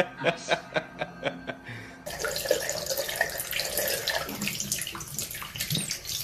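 Water running from a tap and splashing. It begins about two seconds in, after a run of short evenly spaced pulses at about four a second.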